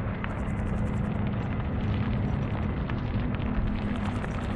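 Airbus A340-300 airliner's four CFM56 jet engines running up at take-off thrust at the start of the take-off roll, heard from a distance as a steady rumble with a constant low hum.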